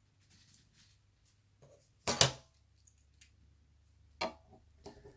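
Laptop parts being handled during disassembly: a few faint clicks and two sharp knocks, the louder one about two seconds in and a smaller one about four seconds in.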